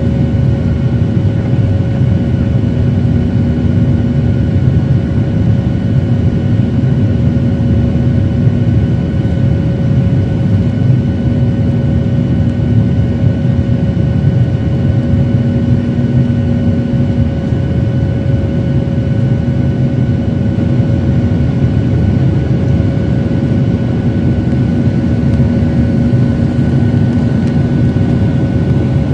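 Jet airliner's turbofan engine and rushing air heard from inside the cabin: a loud, steady drone with thin steady whining tones over it and a low hum that comes and goes.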